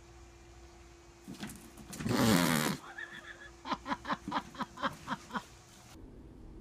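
A loud rustling clatter lasting most of a second, about two seconds in, as a cat drops from a wicker chair onto a plastic trash can lined with a bag. It is followed by a person laughing in a quick run of short bursts, about five a second.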